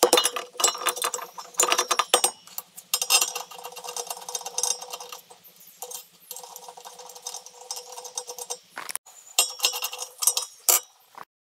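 Metal tools and clamping parts clinking and clattering: a rapid run of sharp clicks and knocks, densest in the first couple of seconds, with a short break about nine seconds in.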